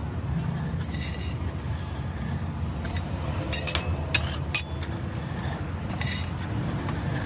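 Metal spatula scraping across a frozen steel ice-cream pan, pushing thin sheets of ice cream into rolls: a series of short scrapes, clustered about three and a half to four and a half seconds in, over a steady low background hum.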